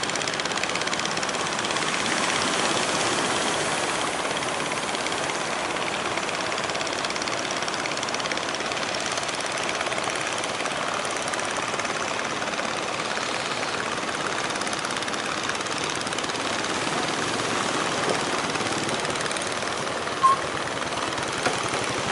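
Engines of wooden fishing boats running steadily under way, with a fast, even pulse. A short sharp sound stands out near the end.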